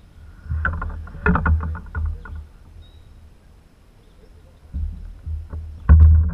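Knocks and clatter in a canoe: a cluster of sharp hollow knocks early on and one loud knock near the end, over the gusting rumble of wind on the microphone.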